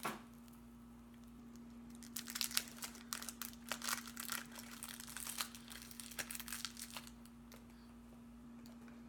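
Candy wrapper being crinkled and torn open by hand: a run of sharp crackles starting about two seconds in and easing off near the end, over a steady low hum.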